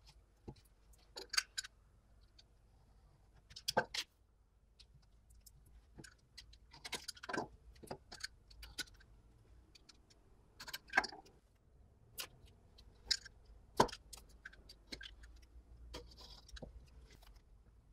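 Scattered light clicks, taps and short rustles from hands working electrical tape onto a metal frame on a wooden bench: pressing the tape flat and trimming it with a utility knife. The sharpest clicks come about four, eleven and fourteen seconds in.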